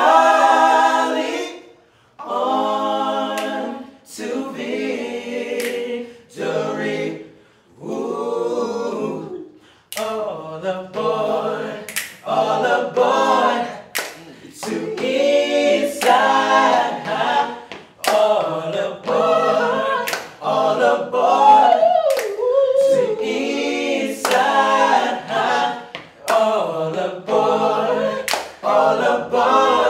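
A male vocal group singing a cappella in close multi-part harmony, in short phrases, with hand claps in time.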